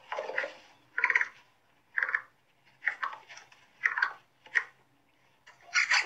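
Capybara calling: a series of short, rough calls repeated about once a second.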